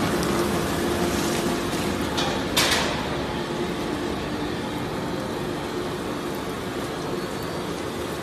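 Industrial waste shredding line running steadily: a constant rush of machine noise with a low steady hum, as shredded cardboard and mixed waste tumble off the discharge conveyor. A short, sharp burst of noise about two and a half seconds in is the loudest moment.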